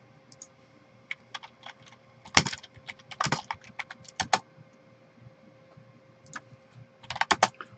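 Typing on a computer keyboard: irregular key clicks in short runs with pauses between, over a faint steady hum.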